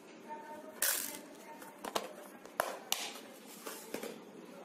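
Close handling noise: a brief rustle about a second in, then a few sharp separate clicks as small craft items are handled by hand.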